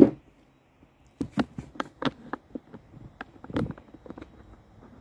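A single knock, then after a short pause a run of irregular light clicks and taps, like small objects being handled.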